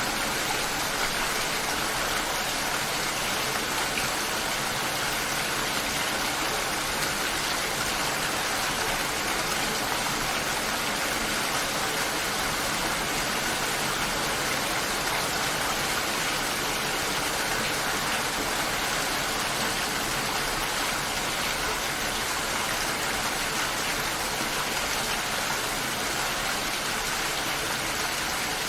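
Steady rain falling, an even hiss that never lets up.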